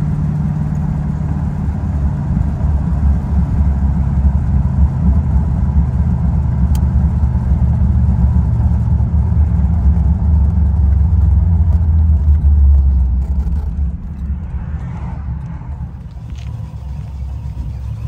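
A 1973 Chevrolet Corvette's V8 engine running with a deep, steady exhaust note. It builds a little over the first twelve seconds, then eases off and quietens about thirteen seconds in.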